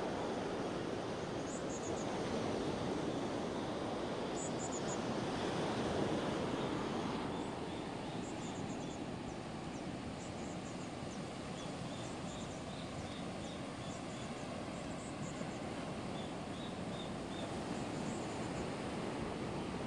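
Beach ambience: a steady rush of waves and wind, fuller for the first several seconds, then quieter, with faint high chirping in short runs.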